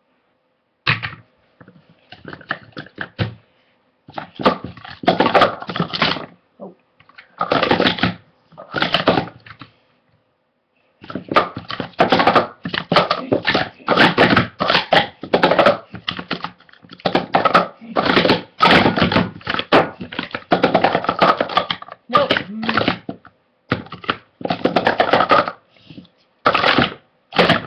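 Hard plastic sport-stacking cups clacking rapidly as they are stacked up into pyramids and swept back down, in quick runs of clatter broken by short pauses.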